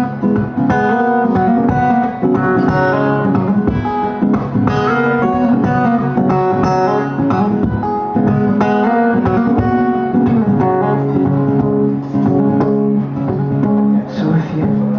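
Acoustic guitar played live, strumming and picking an instrumental passage between sung verses.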